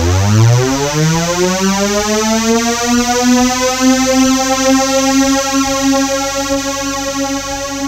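Synthesizer sound effect: one buzzy, overtone-rich tone that sweeps up from a low rumble, rising quickly at first and levelling off after about three seconds, then holding a steady pitch.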